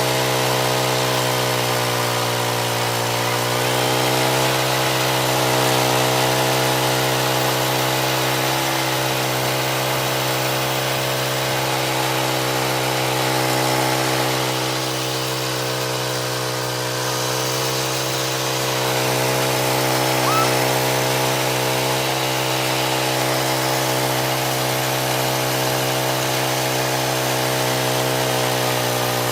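Homemade sawmill driven by a 13-horsepower Princess Auto Power Fist gas engine, running steadily while it cuts through a big log. The engine's pitch drops briefly twice, about three seconds in and again midway.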